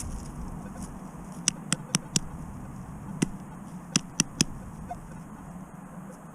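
About eight short, sharp clicks and taps in quick runs from handling a freshly dug target, a piece of aluminum, with the digging tools, over a faint steady outdoor background.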